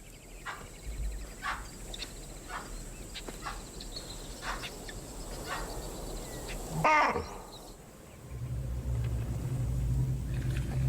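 Wild animal alarm calls from impala and baboons: a run of short, sharp calls about twice a second, then one loud bark falling in pitch about seven seconds in. A low steady drone begins about a second later.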